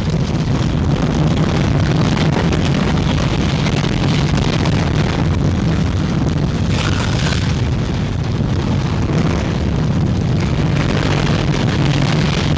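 Schwarzkopf Wildcat steel roller coaster car running along the track: a steady loud rumble of the wheels on the rails, with a brief brighter hiss about seven seconds in.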